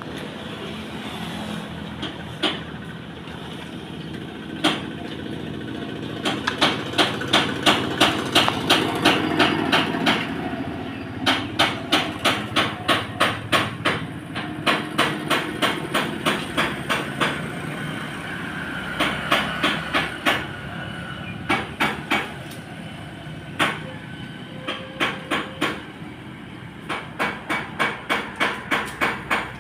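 Runs of sharp knocks, about three a second, with pauses of a few seconds between the runs, over a steady low hum.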